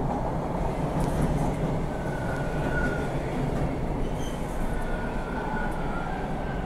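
TTC subway train pulling into the station: a steady loud rumble of wheels and motors on the track, with a thin high whine joining in about two seconds in.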